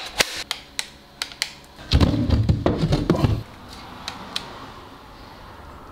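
Sharp plastic clicks from a Makita cordless tool and its battery being handled. About two seconds in comes a burst of heavy bumping and rumbling lasting a second or so, then only a faint steady background noise.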